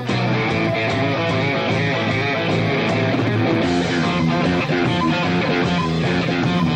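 Punk rock band playing live with electric guitars, in a passage without vocals; the lead guitar sits low in the mix.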